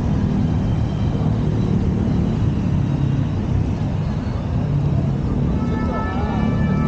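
Steady rumble of city street traffic. Held musical tones come in near the end.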